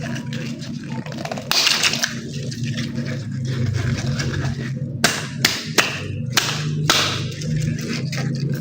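Water balloons being cut open, with sharp snaps and taps as the rubber splits, and water gushing and splashing out in a couple of rushes.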